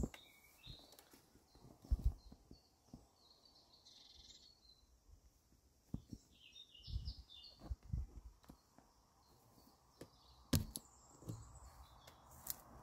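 Scattered soft thumps and fabric rustles from a cat shifting about in a cloth hammock, loudest about two seconds in and again past ten seconds, over faint bird chirps.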